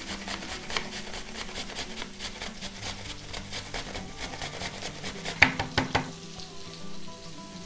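Half an apple being grated on a stainless steel box grater: a run of quick rasping strokes that stops about six seconds in, with one louder scrape just before.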